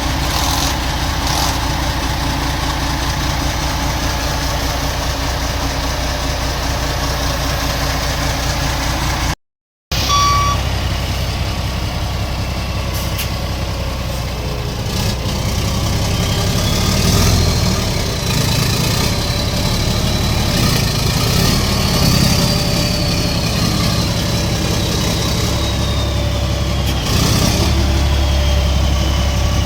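Freshly rebuilt CAMC CM6D28 heavy diesel truck engine running, with a steady drone. It cuts out for half a second about a third of the way in. Over the second half a high whine rises, holds and falls away as the low drone swells a few times.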